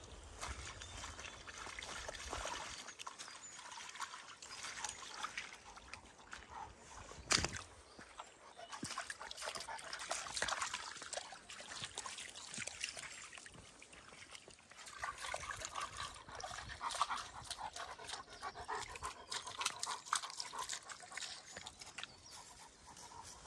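A Greater Swiss Mountain Dog wading in a muddy puddle, with wet sloshing and trickling, then paws and footsteps crackling over a dry, leaf-strewn forest path. One sharp snap about seven seconds in.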